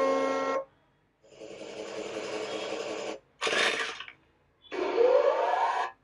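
A run of short machine sound-effect previews, each cut off abruptly: a steady motor hum that stops about half a second in, then a noisy buzzing chainsaw-like effect, a brief burst, and near the end a motor sound with a rising whine.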